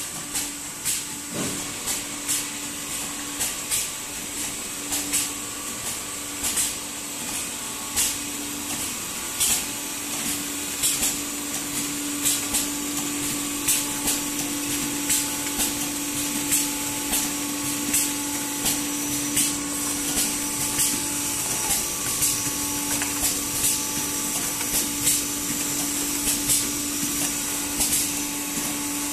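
Several automatic sachet packing machines running together: a steady hum and hiss with sharp clacks repeating a little more than once a second.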